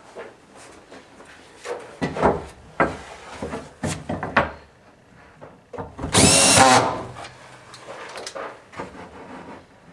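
Several knocks and scrapes of a plank of 9-ply Baltic birch core stock being handled on an aluminium rail jig, then a cordless drill running once for about a second, its motor whine rising as it spins up.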